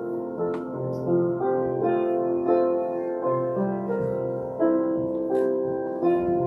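Keyboard music: a slow melody over sustained chords, the notes changing about every half second to a second.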